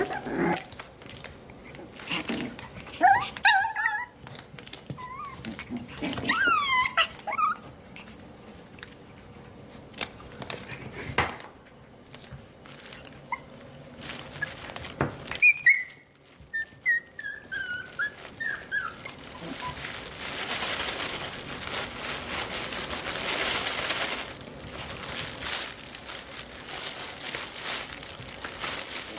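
Seven-week-old Coton de Tulear puppies giving short high-pitched whines and yips, with a run of falling whimpers midway. In the later part, a steady rustling and scuffling of fabric as they play.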